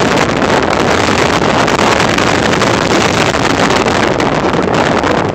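Loud, steady rush of wind over the microphone mixed with road and engine noise from a moving vehicle.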